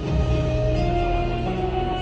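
Music: an instrumental passage of held notes over a steady bass, with no singing.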